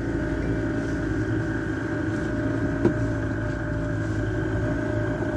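Boat motor running steadily, a constant engine hum as the boat moves slowly over calm water, with a single short knock about three seconds in.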